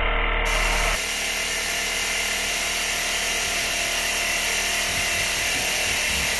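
A small machine running steadily with a rattle.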